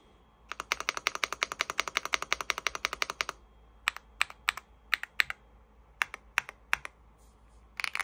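Typing on a stock, gasket-mounted EPOMAKER x Feker Galaxy80 TKL mechanical keyboard with White Marble linear switches: a fast, even run of keystrokes for about three seconds, then slower, scattered single presses, speeding up again near the end.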